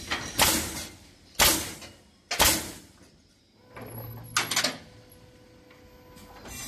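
Pallet block nailing machine's pneumatic coil nailers firing: three sharp blasts of air about a second apart, each with a short hiss, then a quick rattle of clicks about four seconds in.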